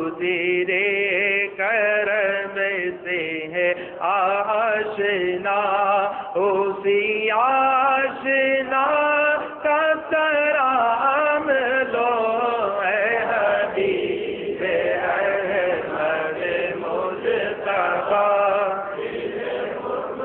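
A man chanting devotional Urdu verse into a microphone, unaccompanied, in long drawn-out wavering notes.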